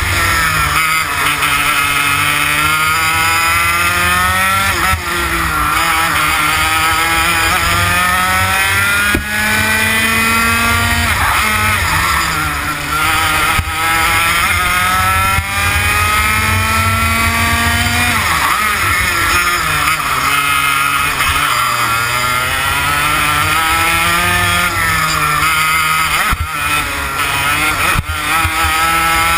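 TKM BT82 Extreme two-stroke kart engine running at racing speed. Its revs climb steadily for several seconds, then drop sharply before climbing again, several times over.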